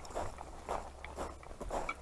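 Footsteps on gravel, walking at about two steps a second.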